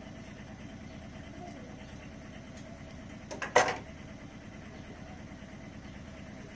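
Steady low engine-like rumble in the background, with one sharp clack about three and a half seconds in, the loudest sound.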